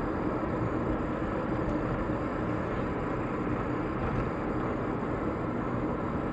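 Steady noise of a vehicle on the move, engine and road rumble at an even level.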